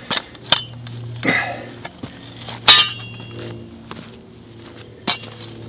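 A steel hand turf plugging tool clinking and knocking as it is driven into hard, dry ground, the ground too hard for the tool to go in easily. There are a handful of sharp metallic clinks, the loudest about two-thirds of a second before the midpoint, with a brief ring. A steady low hum runs underneath.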